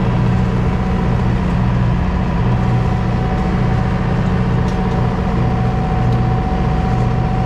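The yacht's inboard engine running steadily under way, a constant low drone with a regular throb and a thin steady whine above it, heard from inside the cabin below deck.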